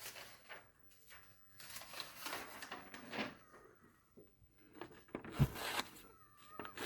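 Freshly sharpened scissors making test cuts: soft slicing swishes, one long stroke and a shorter one later, with a dull thump about five and a half seconds in.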